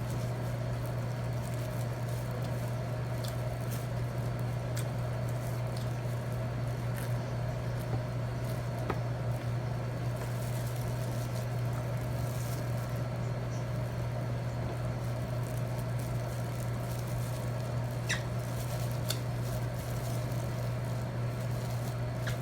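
Eating sounds: scattered small clicks of chewing and utensils, a few of them sharper about 9 s in and twice near 18 to 19 s. Under them runs a steady low electrical hum.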